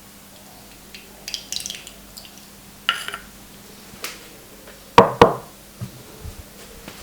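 Hands working during an Indian head massage: a few light clicks and taps, then two sharp, loud cracks in quick succession about five seconds in.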